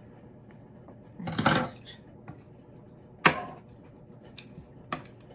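Kitchen shears snipping and clicking while working on a rotisserie chicken: a short rustling snip about a second and a half in, a sharp click about three seconds in that is the loudest, and a few lighter clicks near the end.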